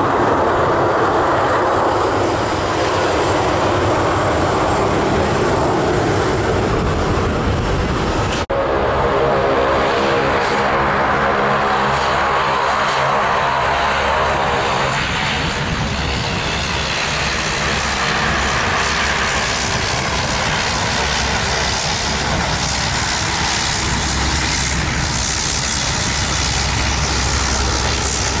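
Airliner jet engines at high power: a Boeing 787 roaring through its takeoff rotation. About eight seconds in the sound cuts suddenly to an Airbus A350's Rolls-Royce Trent XWB engines on the runway, first a steady hum of several tones, then a broad roar.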